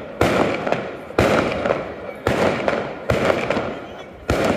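Daytime fireworks barrage: loud aerial bangs about once a second, five in all, each followed by a crackling rumble that dies away before the next.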